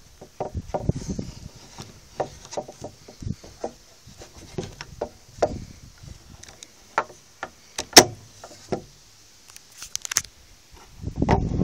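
Handling noise: irregular clicks and knocks of an old air pistol being moved about on a wooden table, with one sharper click about eight seconds in.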